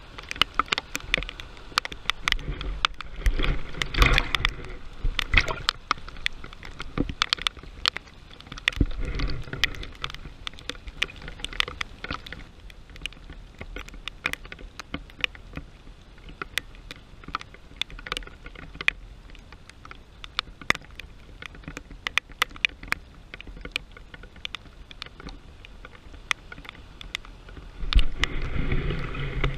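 Heavy rain with many sharp drop ticks on the camera over a steady wash of water. An SUV pushing through floodwater swells loudest about four seconds in, and a pickup truck splashing through floodwater brings it up again near the end.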